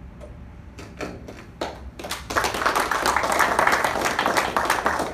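A small audience applauding: a few scattered claps about a second in, swelling into full applause from about two seconds in.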